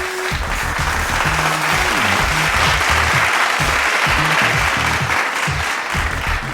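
Background music with a low bass line, under a loud wash of applause-like noise that swells to its loudest midway and then eases off.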